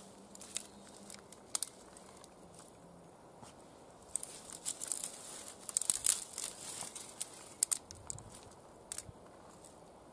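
Dry twigs crackling and snapping as they are broken and laid onto a fire lay: a few single sharp snaps, with a dense run of crackling in the middle.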